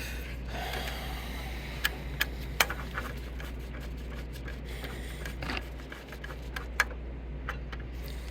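A few sharp clicks and taps from a screwdriver and screws being handled on the printer's parts, over a steady low hum.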